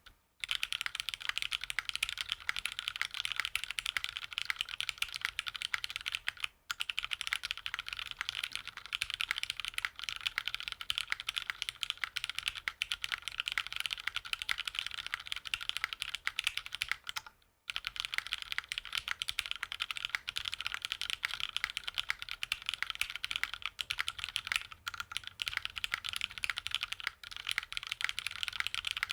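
Fast, continuous typing on a Monokei Kei R1 mechanical keyboard with linear Cherry Hyperglide Black switches, an aluminium half plate and GMK doubleshot ABS keycaps: a dense stream of keystroke clacks, with two brief pauses about a third and about three fifths of the way in.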